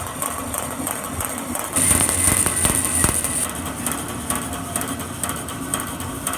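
Grob 4V-36 vertical bandsaw running with its blade moving, a light ticking as the poorly welded blade joint passes through the blade guides. About two seconds in, a louder hiss comes in for about a second and a half.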